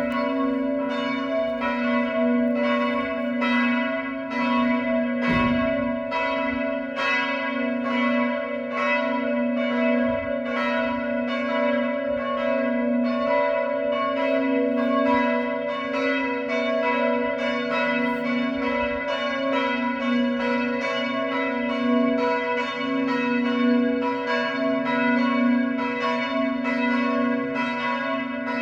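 Two small church bells, the h' and cis'' of a five-bell peal cast in 1953 by the Bachert foundry in Karlsruhe, swinging in full peal with their clappers striking in alternation, a stroke roughly every two-thirds of a second, over a sustained ringing hum.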